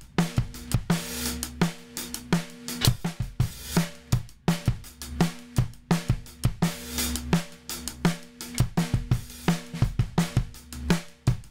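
A drum kit playing a steady groove of kick, snare, hi-hats and cymbals, processed through an Avenson MN-50 Smash Compressor Colour module.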